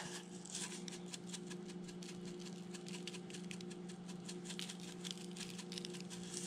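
Dried parsley flakes shaken from a spice jar onto the fish fillet: rapid light ticks and taps, over a steady low hum.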